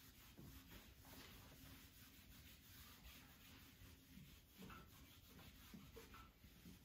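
Faint rubbing of a whiteboard eraser wiping marker writing off a whiteboard.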